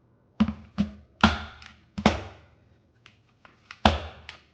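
A fork and dishes knocking and tapping together: about seven sharp clacks, irregularly spaced, with a short pause around three seconds in.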